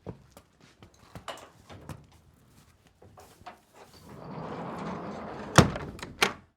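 A horse moving on a hard floor: light scattered hoof knocks, then a rustling rush of noise about four seconds in. Two sharp, loud knocks come near the end, and the sound cuts off abruptly.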